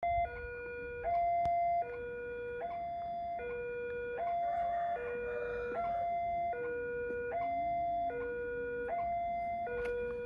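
Railway level-crossing warning alarm sounding a steady two-tone electronic chime, high and low notes alternating under a second each, signalling that the barriers are down and a train is coming.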